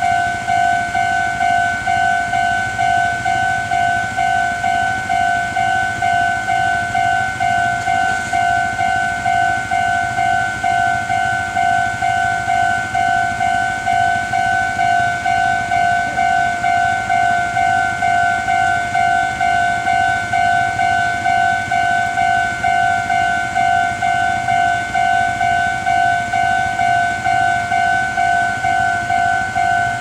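Japanese railway level-crossing alarm ringing: an electronic two-tone ding repeated at an even, steady rate, warning that a train is coming.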